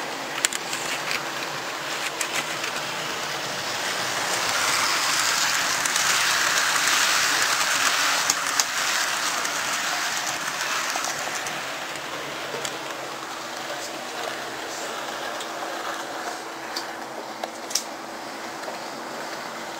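Model railway trains running on the layout: a steady whir and rattle of small motors and wheels on track, louder for several seconds in the middle, with a steady hum underneath and a few clicks.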